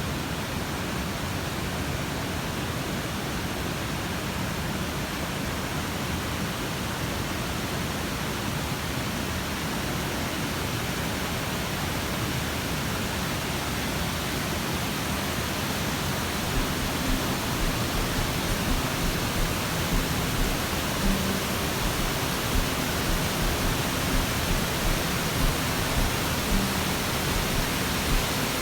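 Steady rushing of water cascading down a stream fall on Raymondskill Creek. From about halfway through, soft low thumps come roughly one or two a second under the rush.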